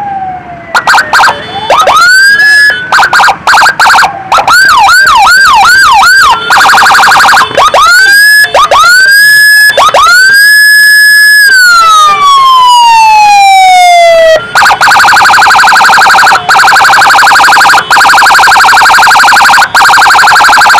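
Electronic emergency vehicle siren sounding very loudly and switching between patterns. It gives short rising whoops, a fast yelp about four times a second, then a long whoop that falls slowly, and from about two-thirds of the way in a rapid warble.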